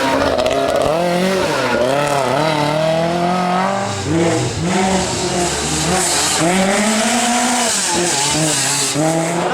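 Lancia 037 Group B rally car's supercharged four-cylinder engine revving hard and dropping back again and again, its pitch rising and falling as it is driven at speed. A hiss builds from about six seconds in.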